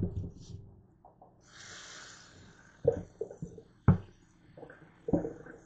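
Kitchen faucet running into a stainless steel sink with a steady hiss that starts about a second and a half in, with several sharp knocks and clatters of things handled at the sink.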